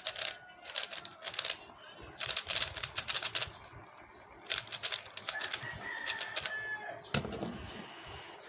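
Plastic Rubik's cube being turned quickly, its layers clicking in three rapid bursts with short pauses between.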